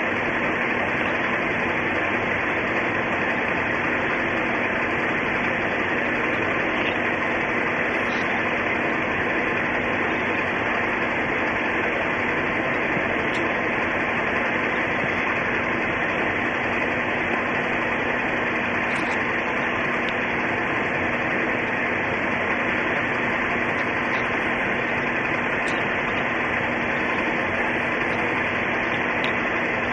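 Steady hiss with a low hum underneath, unchanging throughout, with a few faint ticks now and then.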